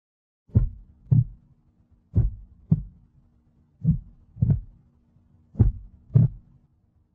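Heartbeat sound effect: four lub-dub pairs of low thumps, one pair about every second and a half to two seconds, over a faint steady low hum.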